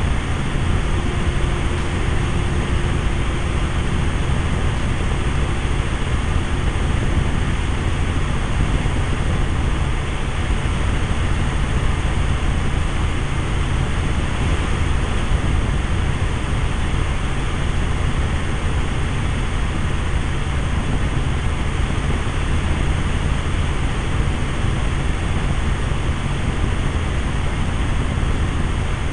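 Helicopter engine and rotor noise heard from inside the cabin: a steady, loud drone with a strong low rumble.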